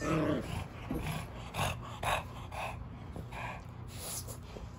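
A French bulldog and a Great Dane play-fighting, with a string of short, noisy breaths roughly every half second that fade out near the end.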